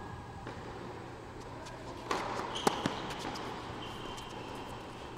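Tennis ball struck by a racket and bouncing on an indoor hard court during a rally: two sharp hits about a fifth of a second apart, about two and a half seconds in. Short high squeaks of tennis shoes on the court come twice.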